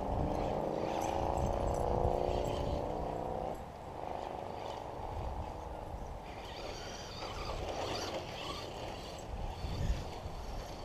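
Traxxas RC car's motor whining as the car drives, rising slightly in pitch, then cutting off about three and a half seconds in. A fainter hiss follows, with low wind rumble on the microphone throughout.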